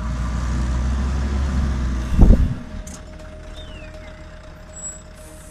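Low rumble of a heavy truck on the road, broken about two seconds in by a loud crash. After the crash it drops to quieter road noise.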